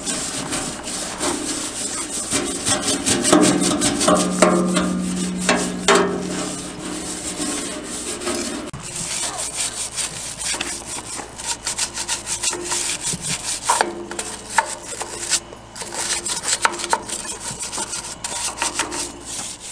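Hand scrubbing on the garden tractor's bodywork with cleaner: rapid, repeated back-and-forth rubbing strokes that go on without a break.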